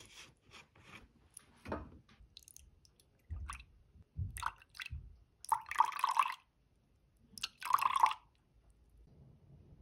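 Liquid poured into a glass measuring cup of milk, in two short splashing pours, the second ending about eight seconds in. Before the pours come soft knocks and clicks as containers are handled.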